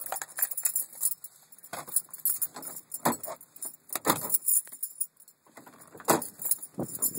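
Keys jangling and clicking in irregular, uneven rattles, with short gaps between them.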